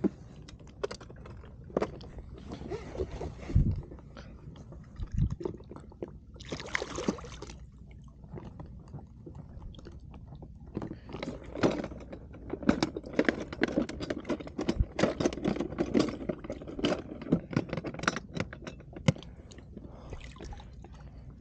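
Light splashing and a run of short clicks and rattles as a hooked queenfish is held at the water's surface beside an inflatable boat and gripped. The clicks come thickest in the second half.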